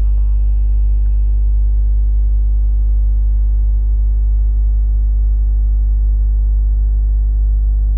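Loud, steady electrical mains hum at about 50 Hz with a ladder of steady overtones, unchanging throughout.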